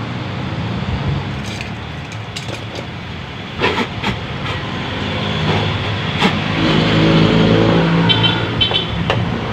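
Road traffic, with a motor vehicle's engine running nearby and swelling for a couple of seconds. A few sharp clicks sound through it, and short repeated high beeps come about a second before the end.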